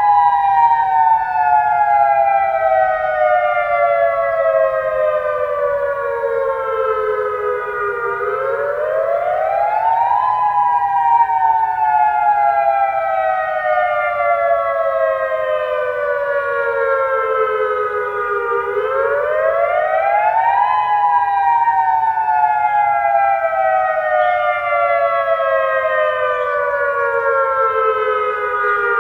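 Dual-tone Federal Signal Modulator outdoor warning siren sounding its wail signal. Two tones a little apart glide up together in about two seconds, then fall slowly for about eight. This happens about three times, and a new rise starts near the end.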